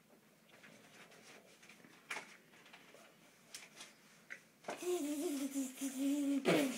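A young child making a vocal sound effect: a breathy, buzzing hum held for about two seconds, wavering slightly in pitch and ending in a short loud burst. Faint light ticks come before it.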